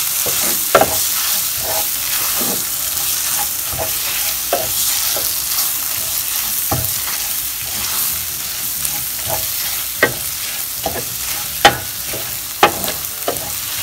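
Onion and tomato masala sizzling in oil in a stainless steel pan while a spatula stirs it, scraping and tapping against the pan at irregular moments. A few sharper knocks stand out about a second in and again near the end.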